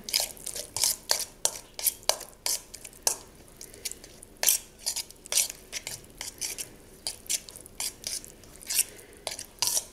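A spoon scraping and clinking against a metal mixing bowl, irregular strokes about two to three a second, as a thick paste is stirred and mashed together.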